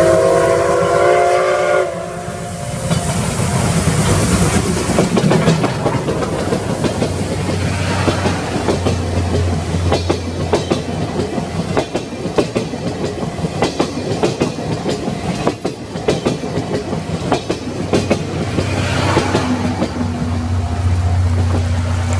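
C57 steam locomotive's whistle sounding a chord of several steady tones that cuts off about two seconds in. Then the train passes, its wheels clattering over the rail joints in a long run of sharp clicks over a steady rumble.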